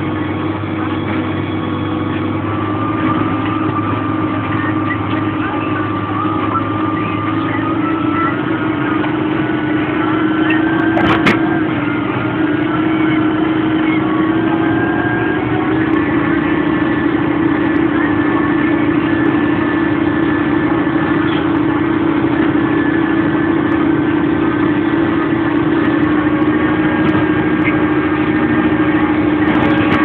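Tractor engine running steadily under load while pulling a reversible plough, its pitch stepping up slightly twice. A single sharp knock about eleven seconds in.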